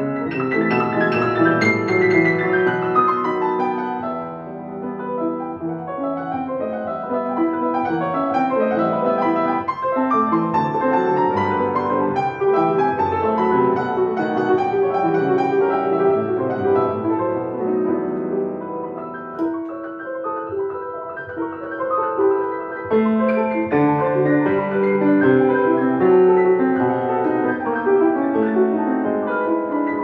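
Solo grand piano playing a classical piece, with quick runs of many notes sounding without a break.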